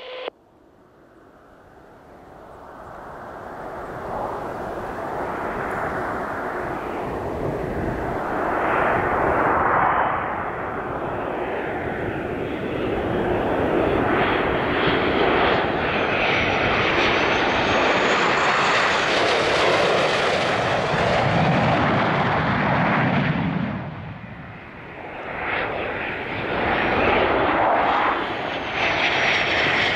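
Jet engines of Blue Angels F/A-18 Hornets on landing approach with gear down. The noise swells from faint to loud over the first few seconds and holds, with a high whine that rises and falls. It dips near the end, then swells again as the next jet comes in.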